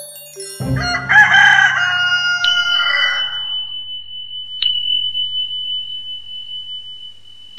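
A rooster crows once, starting about a second in and lasting some three seconds, a wake-up call. A thin steady high tone then holds on to the end, with a single click partway through.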